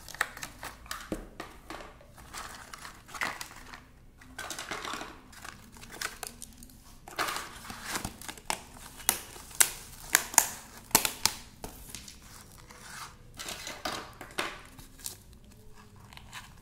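Plastic sand-play moulds, cups and trays being handled and set down: irregular clicks and knocks of plastic on plastic, with rustling in between and a few louder knocks about two-thirds of the way through.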